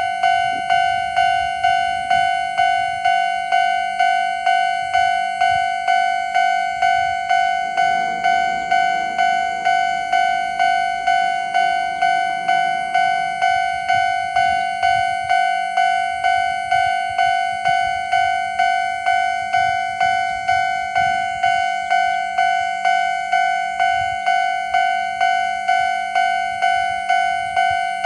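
Japanese railway level-crossing warning bell ringing, an evenly repeated ding about one and a half times a second. A rumbling noise joins it for several seconds from about eight seconds in.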